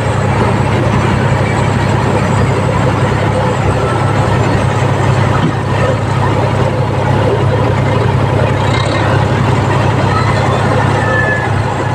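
Compact excavator's diesel engine running steadily.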